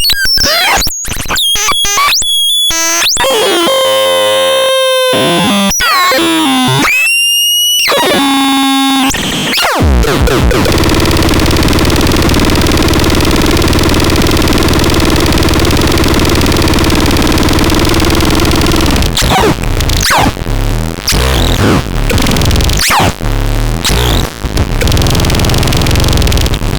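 SWAMPSYNTH electronic synthesizer making glitchy gliding tones and chirps that cut in and out abruptly. About ten seconds in it changes to a dense noise wash over a low drone, which breaks into stuttering bursts near the end.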